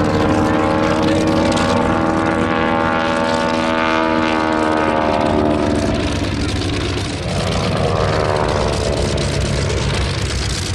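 Boeing Stearman biplane's Continental W-670 seven-cylinder radial engine and propeller droning overhead during aerobatics. The engine note climbs in pitch over the first few seconds, then falls away. It dips briefly about seven seconds in before picking up again.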